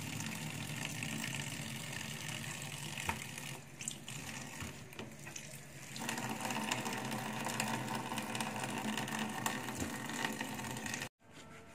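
Kitchen tap water running steadily into a sink and splashing over squid being rinsed by hand in a plastic colander, with a few light knocks. It gets louder about halfway through and cuts off abruptly near the end.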